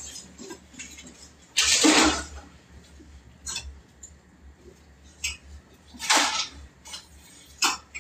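Dishes and utensils clattering and being handled at a kitchen counter, in a few short bursts, the loudest about two seconds in.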